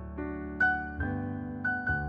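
Slow instrumental piano music, new notes or chords struck about every half second and left ringing.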